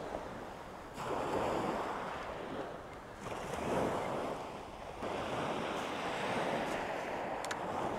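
Small waves breaking and washing up a shingle beach, the surf swelling in surges every two seconds or so.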